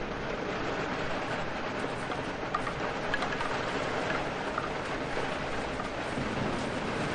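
Rain falling steadily, with a few sharper drop ticks about two and a half to four and a half seconds in.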